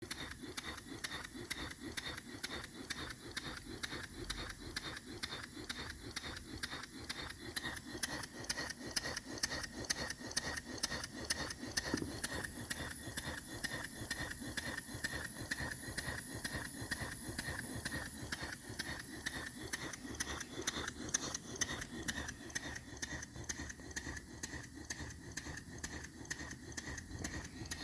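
Stuart No. 1 model single-cylinder steam engine running steadily, its exhaust beats and moving parts making a rapid, even ticking rattle.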